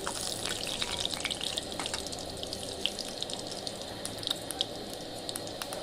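Food going into a pan of hot oil, which sizzles hard at once and then settles to a steady frying hiss with scattered crackles and pops.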